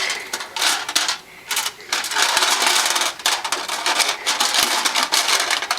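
Small plastic Play-Doh pieces clattering and rattling in a lunchbox as they are shaken and rummaged through, a rapid jumble of clicks with a short pause about a second in.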